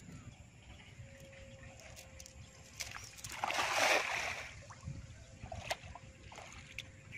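A cast net thrown into a river lands on the water about three and a half seconds in, making one brief rushing splash. A few smaller sharp splashes are heard around it.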